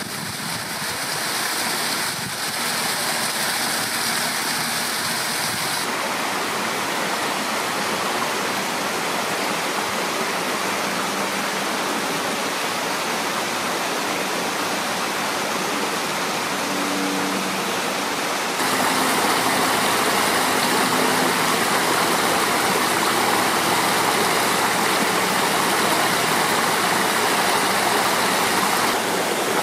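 Water tumbling over rocks in a man-made, rock-lined stream and cascade: a steady rushing splash that grows louder and fuller about two-thirds of the way through.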